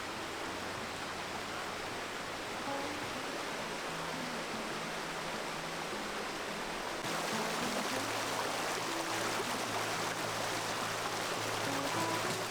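Steady rush of running water under soft background music with low held notes; the water sound turns louder and hissier about seven seconds in.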